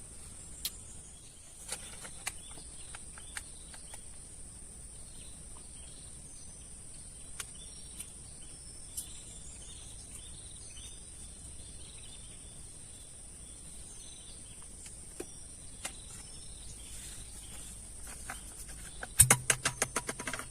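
Steady high-pitched trilling of insects, with scattered small clicks and chirps. Near the end comes a quick run of loud clicks and taps.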